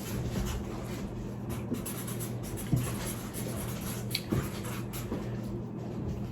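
Pen scratching on paper as an answer is written, with a few small taps and clicks.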